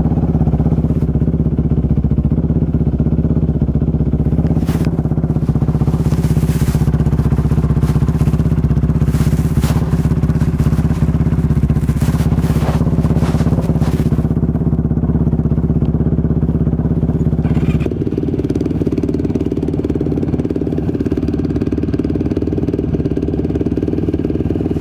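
A 450cc single-cylinder four-stroke off-road engine running steadily, with scattered clicks and rattles through the middle. About three-quarters of the way in, its note shifts and gets a little quieter.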